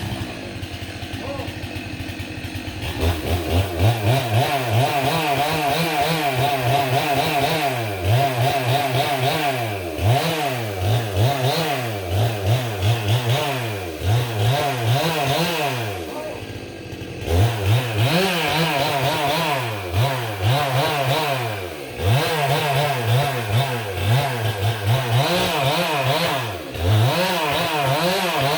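Two-stroke chainsaw running, at a lower speed for the first few seconds, then at high revs with its pitch repeatedly dipping and recovering every second or two, as when cutting through wood. Brief lull about seventeen seconds in.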